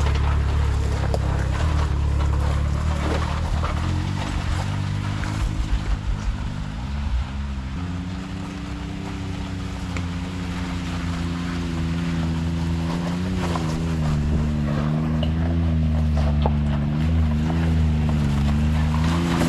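Can-Am X3 side-by-side's engine running under a steady rushing noise, uneven for the first several seconds, then holding a steady speed with its pitch wavering slightly up and down.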